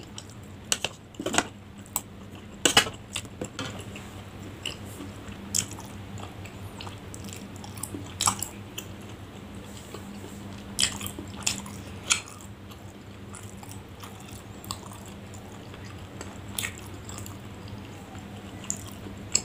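Close-up chewing of a chewy tapioca-starch snack (cimin cilor) with mayonnaise: wet mouth clicks and smacks at irregular intervals, busiest in the first few seconds, over a low steady hum.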